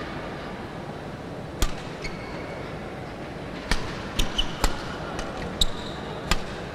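Badminton rally: sharp racket strikes on a shuttlecock, the serve about one and a half seconds in, then a quick run of hits a couple of seconds later, with short squeaks from the court floor, over the steady murmur of an indoor sports hall.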